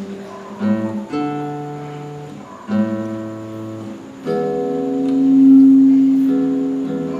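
Guitar playing a slow run of sustained chords. One chord, struck a little over four seconds in, swells louder and then fades.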